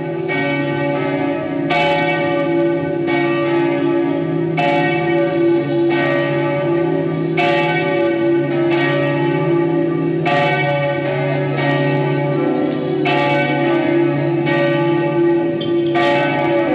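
Church bells ringing, with a fresh strike roughly every second and a half over a steady hum of overlapping, sustaining bell tones.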